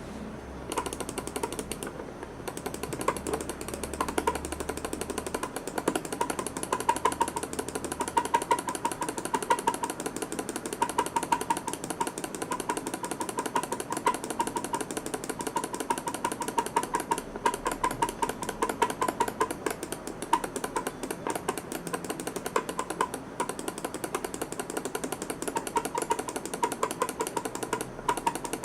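Razer Diamondback 3G computer mouse making a rapid, continuous string of clicks, the annoying click sound this mouse has developed.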